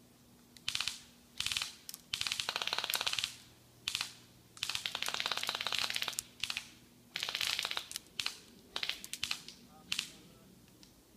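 Airsoft gun firing in rapid bursts of fast clicks, about a dozen bursts in eight seconds, most brief and a few lasting over a second.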